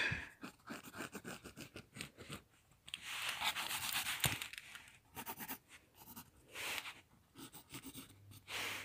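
Mechanical pencil scratching on sketchbook paper in a run of short, quick strokes, with a longer stretch of rubbing across the paper about three seconds in and a single sharp tick near four seconds.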